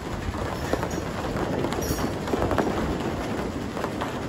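Rain falling steadily in a thunderstorm, with many scattered, irregular sharp drop hits close by.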